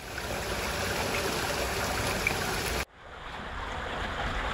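Steady rush of flowing water. It cuts off suddenly about three seconds in and is replaced straight away by another stretch of rushing water that is duller and slowly grows louder.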